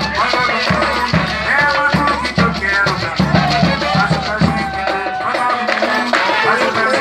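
Brazilian coco music: a voice singing over a steady beat of a low drum and a shaker. The low drum drops out about five seconds in while the singing and shaker carry on.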